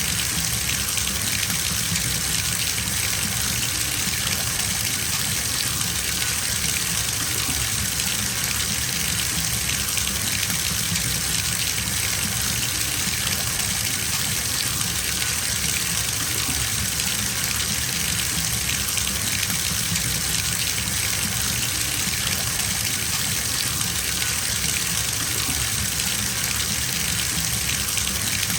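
Bathtub filling from the tap: a steady, even gush of running water pouring into the tub.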